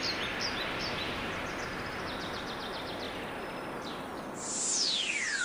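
Running forest stream with birds chirping over it. Near the end, a sound effect sweeps down steeply in pitch.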